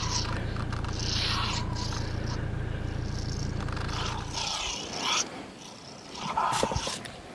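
Fighting animals hissing and growling in repeated rasping bursts about a second apart, over a low rumble that cuts out about four and a half seconds in; a louder snarl with a few knocks comes near the end.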